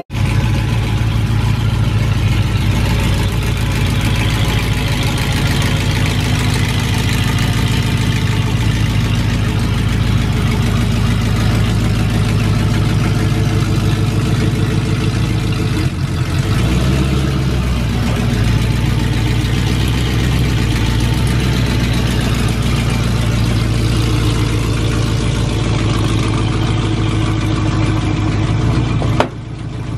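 Chevrolet Silverado pickup's engine running at a steady idle, with a brief dip and change in pitch about halfway through, as the truck creeps forward. The sound cuts off suddenly near the end.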